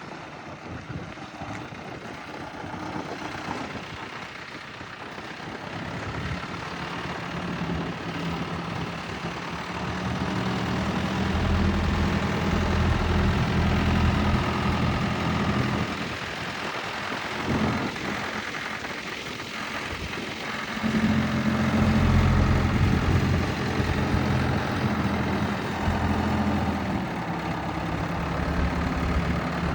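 Ford 555D backhoe's diesel engine running. It is faint at first, comes up strongly about six seconds in, eases off for a few seconds around the middle, then runs loud again.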